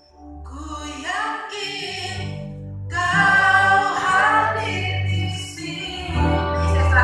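Worship team of male and female singers singing a gospel song together into microphones, over sustained band accompaniment with a steady low bass. The voices come in about half a second in.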